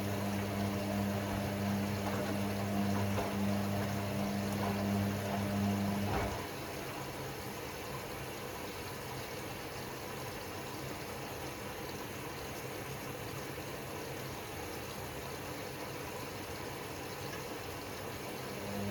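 Hoover Sportswear 1300 AI130 washing machine taking in water: a steady low hum over running water. The hum cuts off about six seconds in, and water keeps running quietly into the drum.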